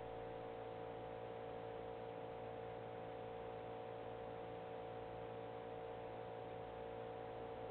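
Steady electrical hum with a few held tones over a faint hiss, with no knocks or thumps.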